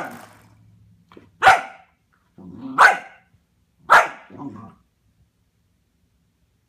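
Puppy barking at a doorstop: four short, sharp barks about a second apart, with a low growl after the last two.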